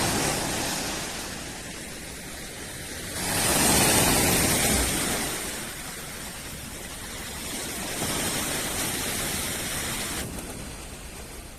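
Sea waves washing onto the shore, a steady rush that swells about three seconds in, eases, and rises again near eight seconds.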